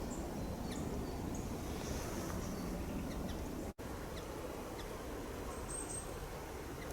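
Wild small birds giving scattered short, high chirps over steady outdoor background noise, with one slightly longer high note about six seconds in. The sound drops out for an instant just before the four-second mark.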